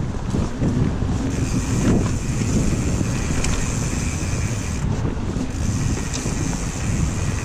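Wind rushing over the microphone along with the rumble and rattle of a mountain bike rolling down a dirt singletrack, with a few sharp clicks from the bike over the rough trail.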